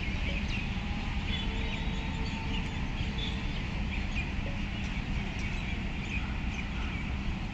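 Open-air ambience: a steady low rumble with faint bird chirps.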